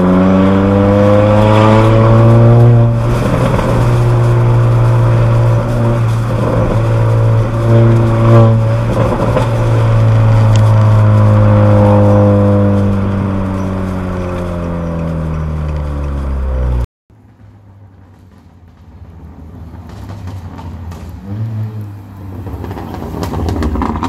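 Honda Accord 1.5-litre turbo four-cylinder's straight-through exhaust, downpipe and front pipe with resonator and muffler deleted, droning loudly inside the closed cabin under acceleration. Its pitch climbs in the first couple of seconds, holds with a few brief dips, then falls slowly as the car eases off. About 17 seconds in it cuts off abruptly, leaving quieter road rumble that builds toward the end.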